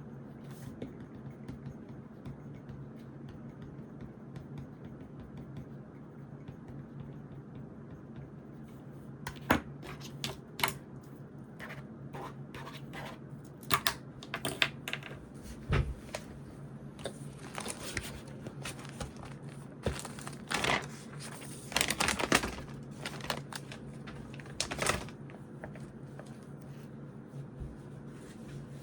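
Paper rustling with clicks and taps of stationery handled on a desk, starting about ten seconds in and coming in irregular bursts, over a steady low room hum.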